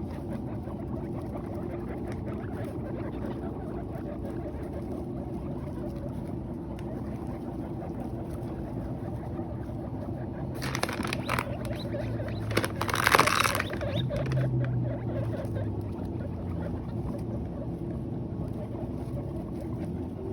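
Guinea pigs chewing and rustling hay, a steady crackly munching with two louder bursts of rustling about eleven and thirteen seconds in.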